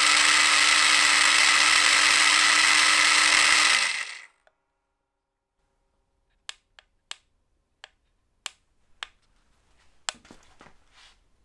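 Small 12 V scooter starter motor running unloaded off a battery through a spur-gear reduction, with a steady high whine over a lower hum. The output spins at about 4,500 RPM, which puts the motor itself at about 18,000 RPM. Power is cut about four seconds in and it spins down quickly, followed by a scattering of sharp clicks.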